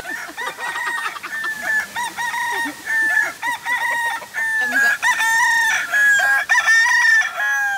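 Feral chickens clucking and cackling in a fast run of short calls that grows louder and more drawn-out in the last few seconds.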